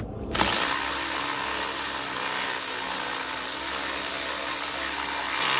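A handheld power tool runs steadily with a hiss and a high whine for about five and a half seconds, then cuts off abruptly.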